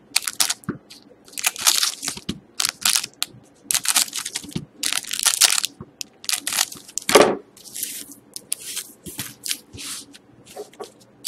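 Foil trading-card pack wrappers crinkling and crackling as they are handled and snipped open with scissors, in a run of short crackly bursts. A heavier thump comes about seven seconds in.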